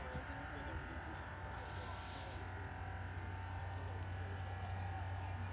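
Outdoor ambience at a soccer field: a steady low rumble with faint distant voices, and a brief hiss about two seconds in.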